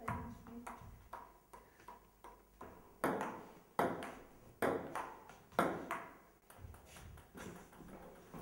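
Table-tennis ball hit back and forth with a paddle and bouncing on the table: a series of sharp clicks. They are faint for the first three seconds, then come as louder hits roughly one a second, and die away after about six seconds.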